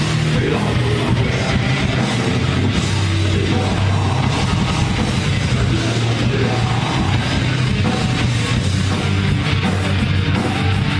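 Loud heavy metal song with electric guitar, played at a steady, dense level with no breaks.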